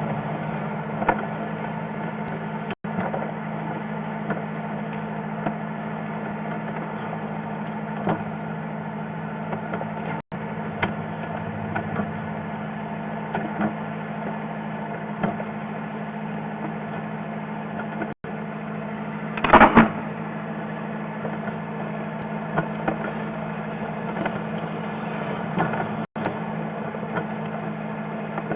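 Engine idling steadily with a constant low hum, with a brief louder noise about two-thirds of the way through.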